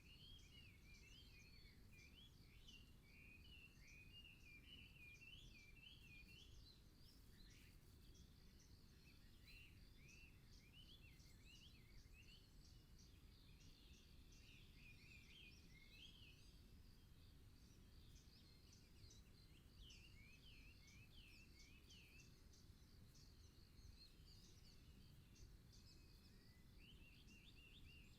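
Faint songbirds singing: quick chirps and warbling phrases in clusters, several birds overlapping, over a low steady rumble of outdoor background noise.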